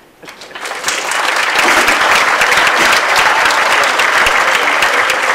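An audience applauding. The clapping swells over the first second, then holds steady.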